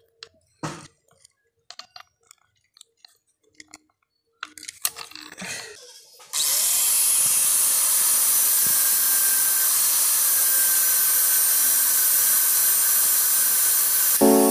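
A few scattered light clicks and knocks, then about six seconds in an electric angle grinder comes in suddenly and runs steadily, its abrasive disc grinding the edge of a forged steel spade blade and throwing sparks. Music starts right at the end.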